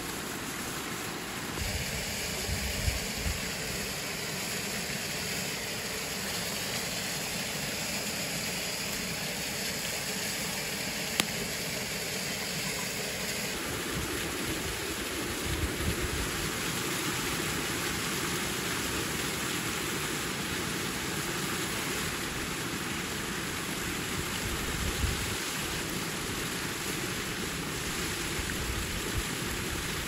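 Steady rushing of a waterfall and stream. A few soft low thumps and one sharp click about eleven seconds in.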